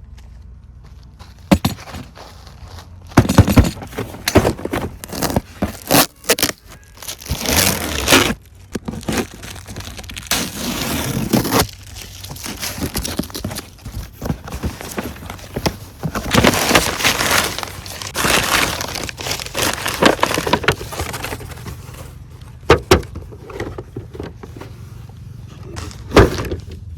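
Toy packaging being handled and opened: irregular rustling and crinkling of plastic and cardboard, broken by sharp clicks and snaps.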